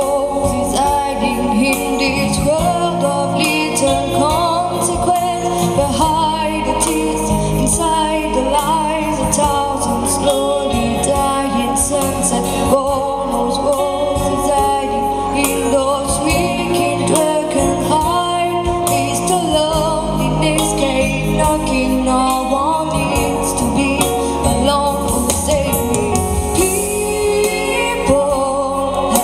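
A woman singing a song live into a microphone, with band accompaniment underneath.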